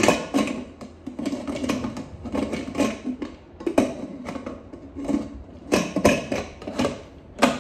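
Irregular metallic clicks, knocks and clatter of a pressure cooker being handled, with a few sharper knocks near the start, about six seconds in, and near the end.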